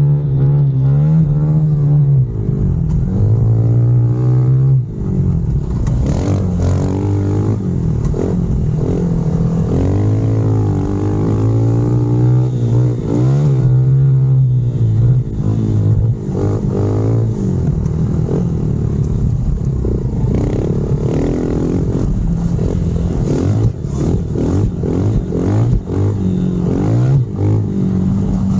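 Honda CRF110F pit bike's single-cylinder four-stroke engine under hard riding. Its pitch climbs under throttle and drops back again and again through gear changes and off-throttle moments.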